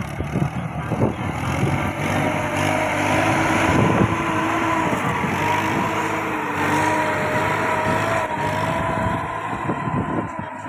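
Kubota 21 hp mini tractor's diesel engine running steadily under load as it pulls a sugarcane ratoon fertilizer-and-earthing-up implement through the soil, with a steady whine over the engine note.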